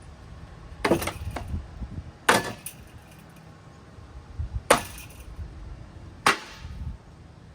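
Ceiling fan being smashed: four hard blows, spaced one to two seconds apart, each with a brief ringing clatter.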